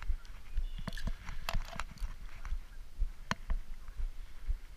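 A few irregular sharp clicks and knocks from handling a spinning rod and reel while playing a hooked carp, the loudest about three seconds in, over a low steady wind rumble on the microphone.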